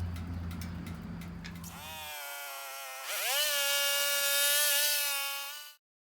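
Sawmill running: for about two seconds a low steady hum with scattered clicks, then a saw whine that rises in pitch and holds steady with a loud hiss of cutting. The sound cuts off abruptly near the end.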